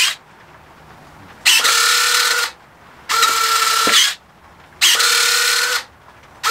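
Electric retractable main landing gear of an FMS P-39 Cobra II foam RC plane cycling up and down, each move a steady whine from the retract units lasting about a second. It runs three times with short pauses between, and a fourth begins at the very end.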